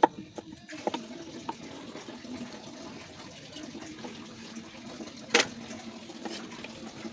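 A knife chops once on a cutting board, then water runs steadily, with one sharp clack about five seconds in.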